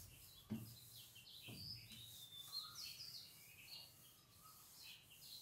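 Near silence: a cloth rubbing faintly across a whiteboard, with faint bird chirps in the background.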